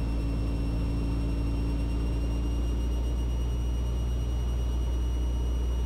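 Steady low drone of a Mooney M20E's four-cylinder Lycoming engine heard inside the cabin during the landing rollout, with no sharp knocks or changes.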